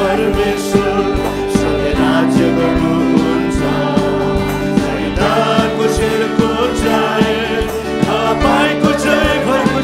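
Live Nepali Christian worship song: male voices singing over acoustic guitar, with a steady beat.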